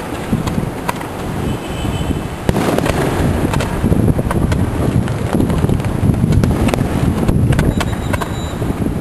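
Fireworks display popping and crackling in a dense run of bangs and cracks, which grows louder about two and a half seconds in.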